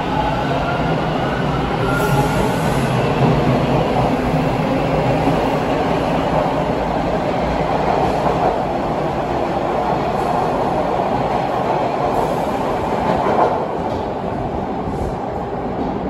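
TTC T1 subway train pulling out of the station past the platform. At first its traction motors whine, rising in pitch, over the steady rumble of wheels on rails. The noise drops off about thirteen seconds in as the last car leaves.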